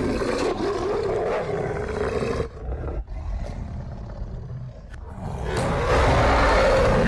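Film creature sound of a werewolf roaring: a long, loud roar that breaks off about two and a half seconds in, a quieter stretch, then a second loud roar that swells up near the end.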